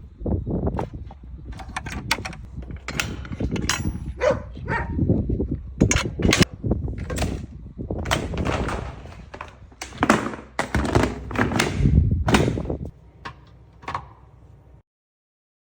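A long run of knocks, thuds and rattles of things being handled, such as a coop door or lid being shut, over a low rumble of wind on the microphone; it cuts off abruptly near the end.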